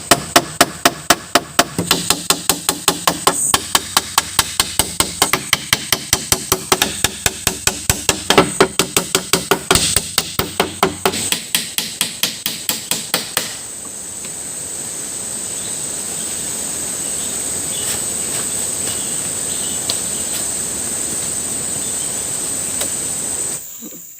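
Rapid, even hammering, about four blows a second, which stops a little over halfway through. After that there is steady forest ambience with a high-pitched insect drone, fading out near the end.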